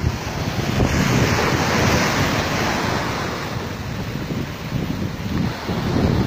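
Large waves from a rough sea breaking and washing up the shore in a continuous rush of surf, with wind buffeting the microphone.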